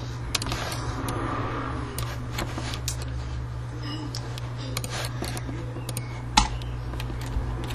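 Scattered clicks of a computer mouse, irregular and a few at a time, with the loudest about six and a half seconds in, over a steady low hum.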